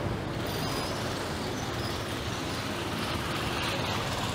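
Steady city street traffic noise, a continuous mix of passing vehicle engines and road noise.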